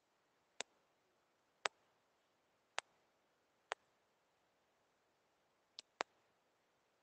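Six sharp, irregular clicks of a stylus tip tapping on a tablet's glass screen during handwriting, two of them in quick succession near the end, over near silence.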